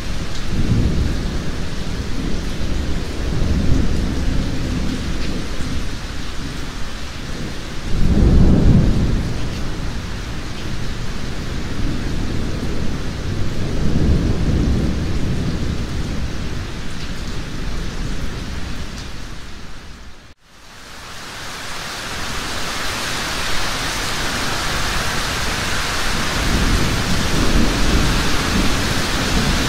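Heavy rain falling steadily with several low rolls of thunder, the loudest about a third of the way in. About two-thirds through, the sound fades out briefly and fades back in, the rain hiss then brighter.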